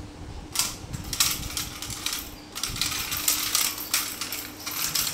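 A kitten batting and chasing a small toy across a marble floor: a run of sharp clicking, rattling bursts starting about half a second in.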